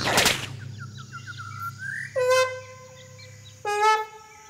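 Cartoon soundtrack: a loud musical hit at the start, then a run of quick little bird-like chirps ending in a short rising glide, then two held notes, the second loudest as it begins.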